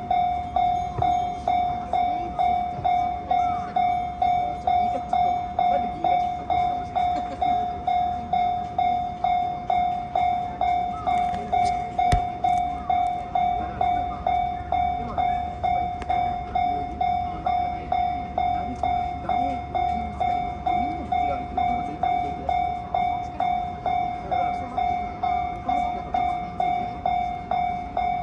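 Japanese railway level-crossing warning bell ringing continuously: an electronic ding repeated at a quick, even rhythm, the alarm that sounds while the crossing is closed. A low rumble runs underneath.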